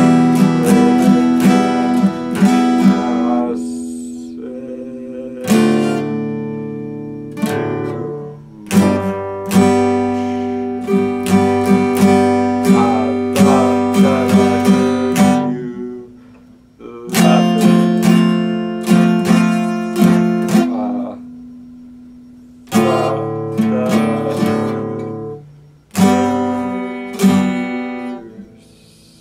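Epiphone acoustic guitar strummed in quick runs of chords, several times stopping to let a chord ring and fade out before the strumming starts again.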